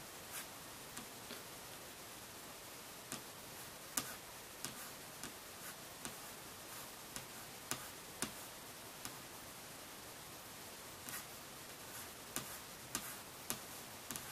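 Light, irregular clicks and taps, about twenty of them scattered unevenly over a faint steady hiss, the sharpest one about four seconds in.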